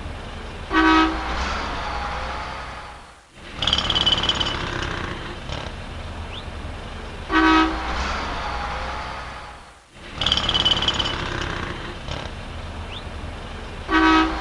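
City street traffic noise with a short car horn honk about every six and a half seconds, heard three times.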